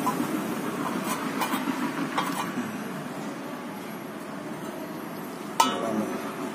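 A car's steel stabilizer link being handled by hand: a few faint metallic clicks and clinks, then one sharp click near the end, over a steady low background noise.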